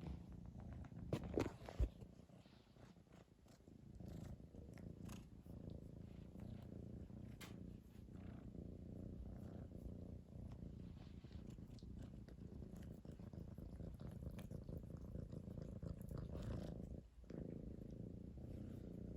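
Domestic cat purring steadily close to the microphone, with a brief break about 17 seconds in. A few sharp knocks about a second or two in.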